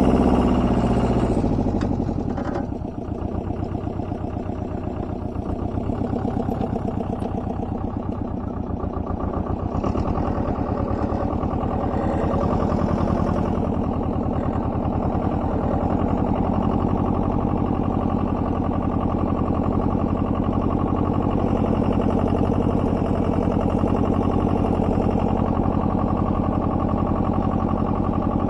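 Single-cylinder petrol engine of a two-wheel walking tractor running while it pulls a tined cultivator through the soil. Its speed and loudness drop about two seconds in, then it runs steadily.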